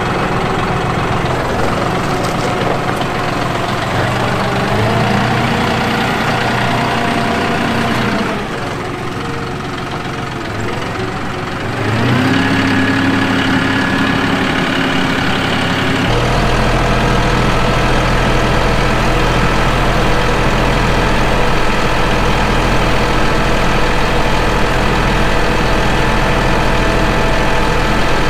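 John Deere 5055E tractor's diesel engine running as the tractor moves and works its front loader, the engine note shifting as it goes. From about halfway through it settles into a steady, heavier drone.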